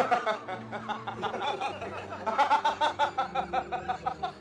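Person laughing, a run of quick giggling bursts that grows busier about halfway through.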